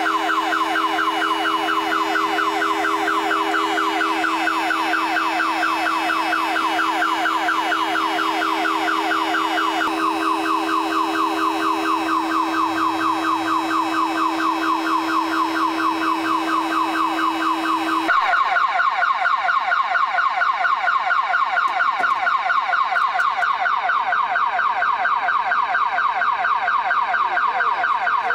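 An electronic alarm warbling fast and continuously, many sweeps a second, with a steady low hum under it that stops abruptly about two-thirds of the way through.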